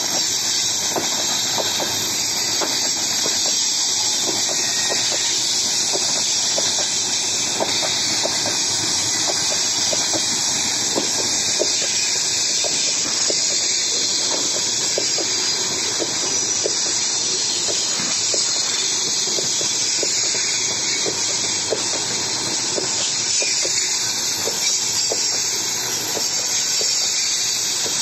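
Freight train of open gondola wagons rolling past: a steady hiss and rumble of steel wheels on the rails, with frequent short clacks as the wheels cross rail joints.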